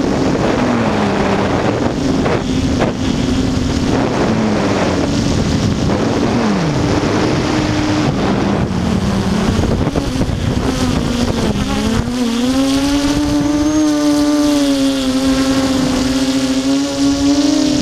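Brushless motors and propellers of an Armattan Tilt FPV quadcopter in flight, heard from its onboard camera: a loud buzzing whine over rushing air. The pitch dips and swells with the throttle several times, then climbs about twelve seconds in and holds higher and stronger.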